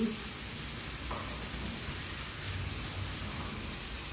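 Steady sizzling hiss of food frying on the stove, with a light knock about a second in.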